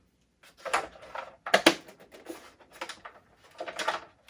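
Small hard plastic toy parts being handled and fitted onto a plastic toy ship: a few short clicks and rustles, spaced about a second apart.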